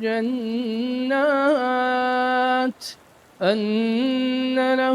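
Quran recitation in melodic tajwid style: a single voice holds long drawn-out vowels with small ornamental pitch turns, stops for a quick breath about three seconds in, then comes back on another held note.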